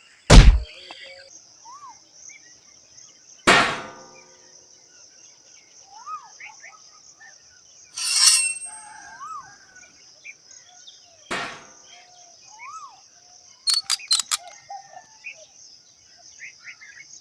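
Outdoor ambience of a steady, high insect drone, with a bird's short rising-and-falling call repeated every few seconds. Several sharp knocks break in: one at the start, a few spaced through the middle, and a quick rattle of four or five about three-quarters of the way in.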